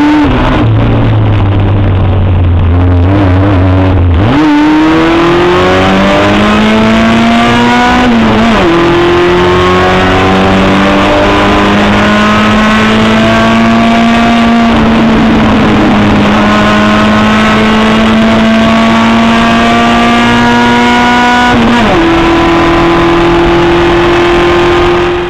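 Promocional 850 race car's small Fiat four-cylinder engine heard from on board, running loud. It holds low, steady revs for a few seconds, then accelerates with rising pitch, drops back at an upshift about eight seconds in and pulls on. Near the end the pitch jumps suddenly, a downshift.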